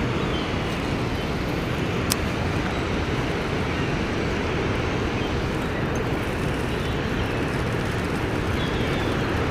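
Steady, deep rushing of water pouring through a large dam spillway into churning, foamy tailwater.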